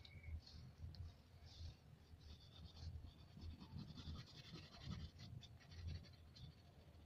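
Pastel stick scratching across paper in quick short strokes as an area is shaded in, faint, over a low hum.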